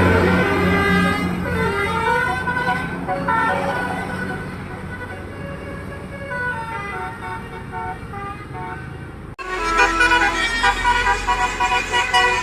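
Basuri musical air horn on a bus playing a telolet tune as a run of stepped, held notes, which fades off gradually. About nine seconds in, it cuts abruptly to another bus horn tune over a low engine rumble.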